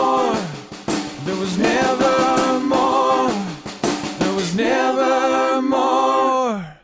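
Closing bars of a rock song: a male voice sings three long wordless phrases that slide up, hold and fall away, over a drum kit with snare and cymbals. The music ends abruptly just before the end.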